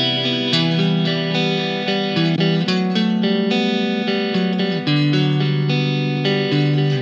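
Electric guitar played through a VOX Mini3 G2 amplifier with a modulation effect switched on: held notes and chords that change every second or so, with a fine, regular pulsing running through them.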